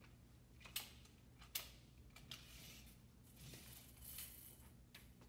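Faint handling of a retractable steel tape measure: two sharp clicks about a second apart near the start, then soft rustling as the tape blade is pulled out and drawn up along the wall.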